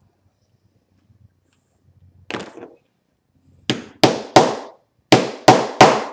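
Small hammer tapping a zipper bottom stop flat onto a metal zipper's teeth on a workbench, crimping the stop closed. A light knock about two seconds in, then six sharp strikes in two quick groups of three from a little past the middle.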